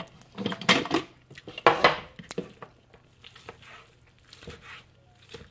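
Metal knife blade knocking and scraping on a wooden cutting board as slices of seitan are scooped up: a few sharp knocks in the first two seconds, then fainter taps and scrapes.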